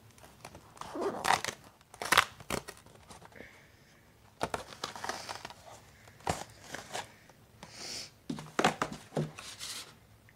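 A cardboard sock advent calendar's door being torn open and a pair of socks pulled out: irregular crinkling, tearing and rustling, with several sharp cracks.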